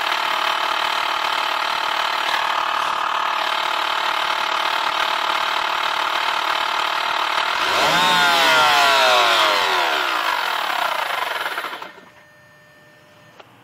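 2006 BMW 530i's N52 inline-six engine running, with a ticking that the owner traces to the alternator area and suspects is the alternator, belt tensioner, pulley or vacuum pump. About eight seconds in it grows louder with a falling whine, then cuts off about twelve seconds in.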